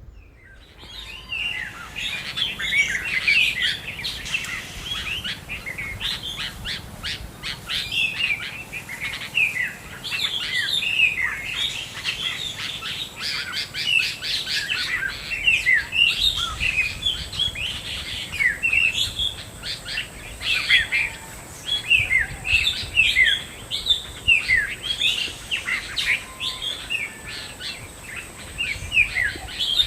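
Many birds chirping continuously, a dense overlapping stream of short, high calls that slide downward in pitch.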